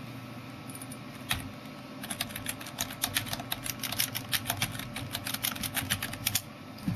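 Typing on a computer keyboard: a single key click about a second in, then a quick run of key clicks from about two seconds in that stops shortly before the end.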